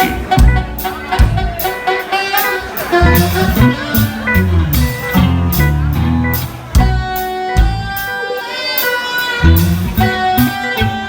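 Live funk band playing: electric guitar over a steady drum beat with a full band behind it.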